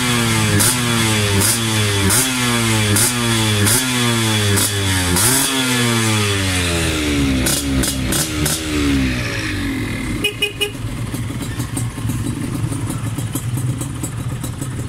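Yamaha DT125 two-stroke single with a tuned expansion-chamber pipe, revved in quick repeated throttle blips, the pitch climbing and dropping back under a second apart. About nine seconds in, the revving stops and the engine settles to idle.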